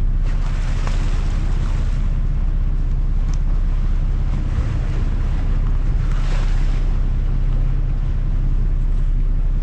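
Boat engine running with a steady low hum, under rushing water and wind buffeting the microphone; the water noise swells twice, near the start and about two-thirds of the way in.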